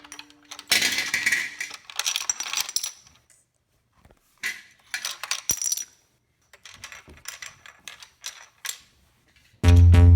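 Hard plastic toy parts being handled: irregular clicks, knocks and rattling clatter, with short pauses between.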